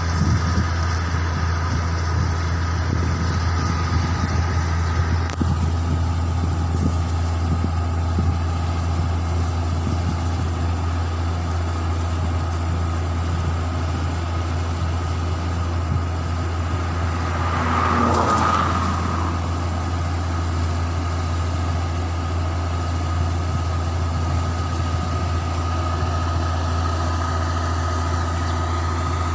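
New Holland tracked combine harvester's diesel engine running steadily as the machine crawls off the road over a paddy-field bund. It gives a constant low drone with a steady whine above it, and the sound swells briefly about two-thirds of the way through.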